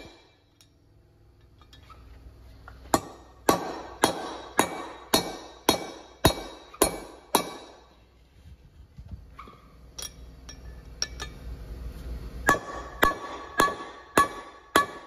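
Hammer blows on a steel drift, knocking the tight press-fit valve guides out of a Ford Sapphire Cosworth aluminium cylinder head. A run of nine evenly spaced strikes, about two a second, starts about three seconds in, followed by a few light metallic clinks. A second run of strikes with a ringing note begins near the end.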